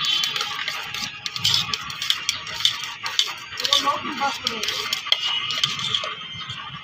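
A spoon stirring chopped vegetables in a stainless steel tumbler: quick irregular clicks and scrapes of metal on steel, with voices in the background.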